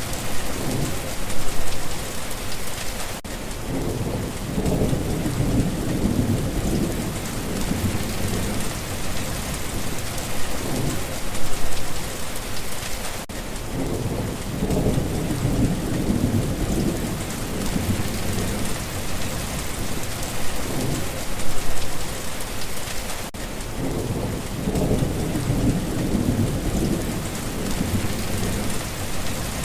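Steady rain with low thunder rumbles swelling three times. The pattern repeats about every ten seconds, as a looped rain-and-thunder track.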